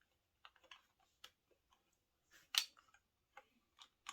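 Plastic Lego bricks clicking and tapping as pieces are handled and pressed together: a string of small separate clicks, with one louder click about two and a half seconds in.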